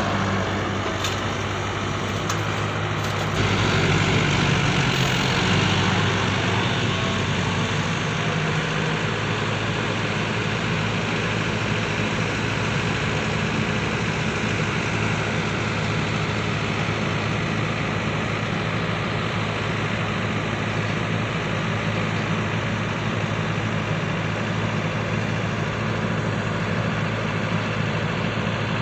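Radio-controlled excavator and trucks running with a steady engine-like drone, getting louder and fuller about three and a half seconds in, then settling back.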